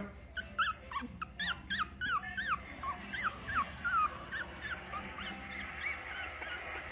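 Four-week-old puppies whimpering and yelping in quick, high, arched squeals, several a second. The calls fade and thin out after about four seconds.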